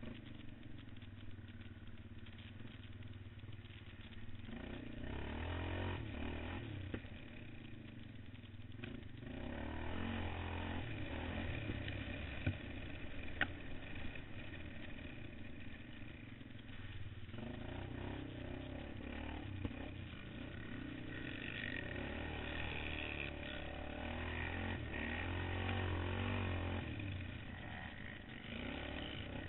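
Quad bike (ATV) engine heard from on board, revving up and down in repeated surges as it is ridden over a dirt track. A couple of sharp knocks near the middle.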